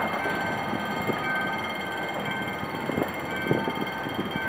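Passenger train coaches rolling slowly over a level crossing, a steady rail rumble with sharp wheel clacks over the rail joints, the loudest a little after three seconds in. A high warning tone sounds on and off throughout.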